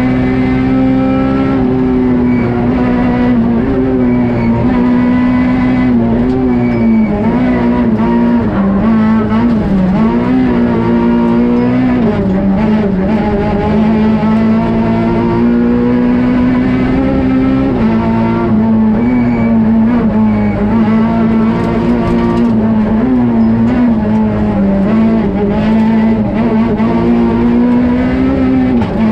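Peugeot 208 R2 rally car's 1.6-litre four-cylinder engine running hard at high revs, heard from inside the cabin. The engine pitch holds high, dipping briefly and climbing back several times.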